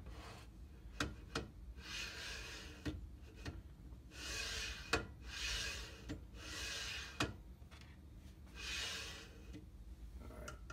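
VORON 1.5 3D printer gantry pushed back and forth by hand on its steel Y-axis shafts, its linear bearings sliding with a rasping hiss. There are five strokes of about a second each, with sharp knocks between them. The gantry is being worked square so it is no longer racked.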